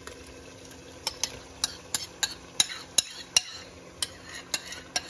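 Metal spoon scraping and tapping against a bowl, with sharp clicks about three a second starting about a second in, as a thick vegetable purée is worked out into a pot.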